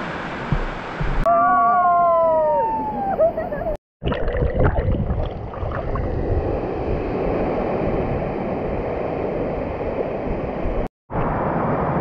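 Waterfall pouring into its pool: a steady rush of water. Near the start a person's voice gives one long call that falls in pitch.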